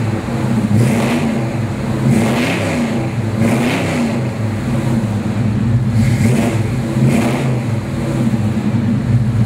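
1989 Chevrolet K5 Blazer's fuel-injected 5.7-litre V8 running through a fresh dual exhaust, revved up and let back down about five times over its idle.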